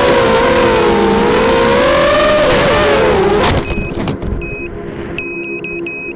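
FPV racing quadcopter's brushless motors whining with rushing air, the pitch rising and falling as the throttle changes. About three and a half seconds in, a sharp knock and the motor sound cuts off, followed by a few short high beeps.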